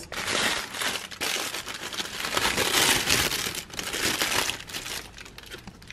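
Thin plastic bag crinkling and rustling in irregular crackles as hands dig through a cardboard box of packed goods, fading near the end.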